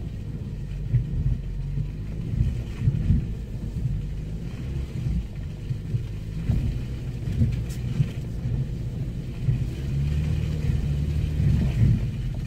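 Car engine running at low speed with a low rumble from tyres and suspension, heard from inside the cabin, with irregular thumps as the car rolls over rough, soft grass.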